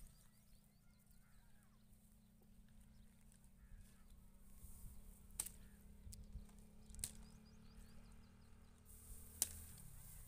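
Near silence: faint outdoor ambience with scattered small bird chirps and three sharp clicks, about halfway through, about two-thirds through and near the end, the last the loudest.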